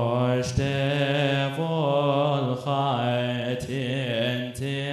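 Male chanting of a Coptic Orthodox liturgical hymn: a slow, drawn-out line with wavering ornamented notes, and a short sharp stroke about once a second.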